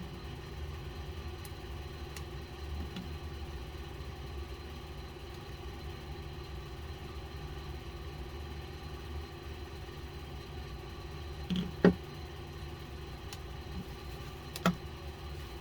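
Steady low hum of a large air conditioner running, with a sharp click about twelve seconds in and another near the end.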